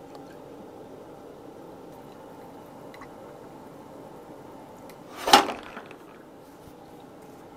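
Drinks being poured into a glass: bokbunja (Korean black raspberry wine) from a bottle, then a top-up from a plastic bottle, with one short, loud crackle about five seconds in.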